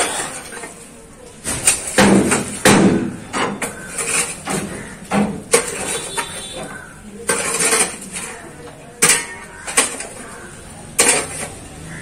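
Metal shovel chopping and scraping into hard-packed earth and brick rubble, giving irregular sharp clinks and knocks about once or twice a second.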